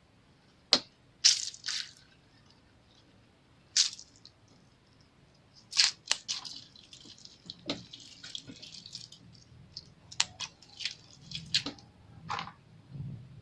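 Slime being worked by hand, squished and poked, giving irregular sharp clicking pops with a stretch of dense crackling partway through.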